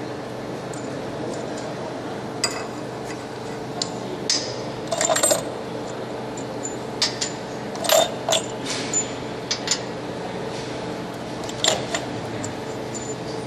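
Irregular light metallic clinks and taps, about ten, over a steady machine hum.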